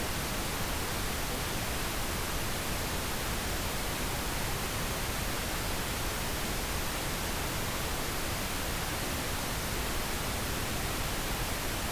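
Full-bandwidth pink noise test signal: a steady, even hiss spread across all frequencies, played at reference level for calibrating speaker volume with an SPL meter.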